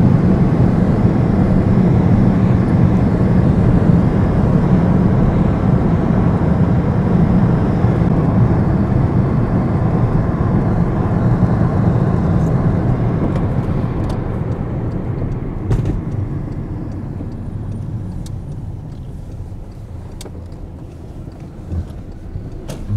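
Car cabin road noise while driving: a steady rumble of tyres and engine that gradually dies down over the second half, with a few faint clicks near the end.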